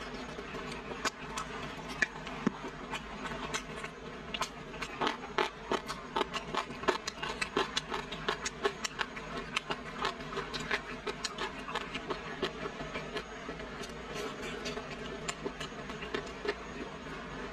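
Close-miked chewing of fried tofu-skin five-spice rolls: many short, crisp crunches and wet mouth clicks, thickest in the middle stretch, over a steady low room hum.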